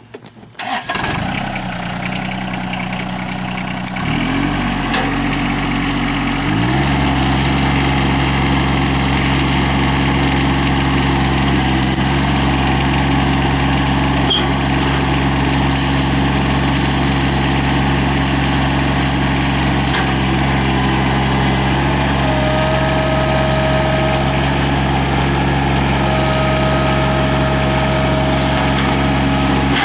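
John Deere 2305 compact tractor's three-cylinder diesel engine catching about a second in and idling. Its speed rises in two steps, around four and six and a half seconds in, and it then runs steadily at the higher speed.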